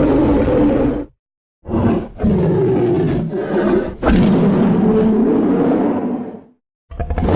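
Custom-made Gigantosaurus roar sound effects: one roar ends about a second in, then after a short gap comes a brief roar and a longer one of about four seconds that cuts off, and another sound begins just before the end.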